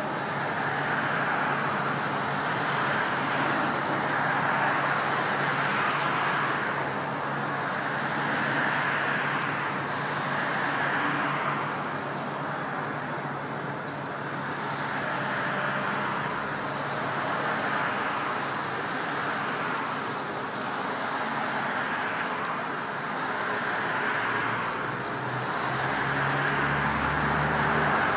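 Road traffic noise, cars passing in steady waves, over a low engine drone that grows louder in the last few seconds.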